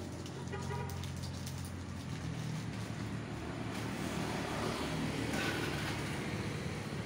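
Steady low engine hum with road traffic noise, easing slightly about halfway through.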